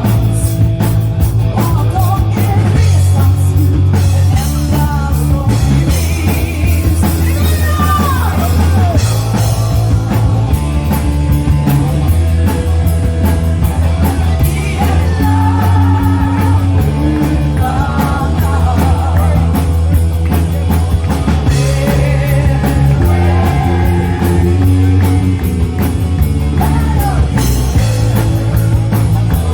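Rock band playing live, a singer over drums and a steadily pulsing bass.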